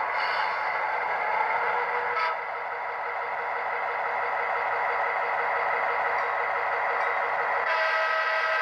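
Digital sound from an HO-scale Athearn GP15-1's Soundtraxx Tsunami 2 decoder, played through the model's small speaker: a diesel prime mover running steadily as the locomotive runs by. Near the end a horn starts to sound.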